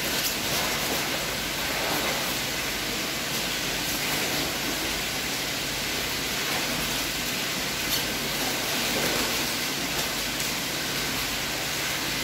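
A steady hiss of background noise, with light rustling and crinkling of newspaper as lobsters are wrapped.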